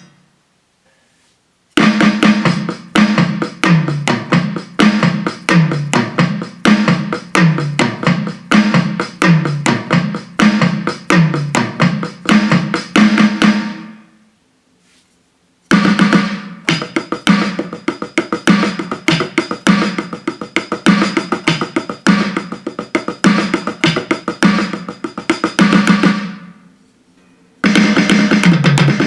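Donner DED-50T electronic multipad playing drum-kit sounds in quick, steady patterns of kick, snare and percussion hits. Three separate runs, split by two short silent pauses.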